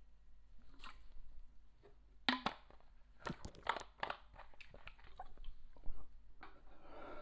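Irregular wet clicks and crunches of a person chewing a jelly bean and swallowing water from a plastic bottle, picked up close by a lapel microphone.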